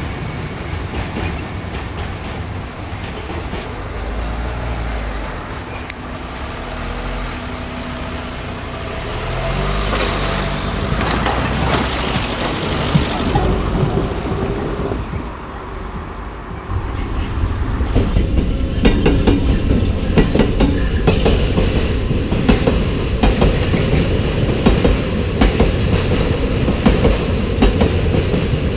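Freight train of flat wagons: a diesel locomotive's engine drones, its note shifting, through the first half. Then, louder, wagon wheels clatter over rail joints in a steady run of clicks as the wagons pass close.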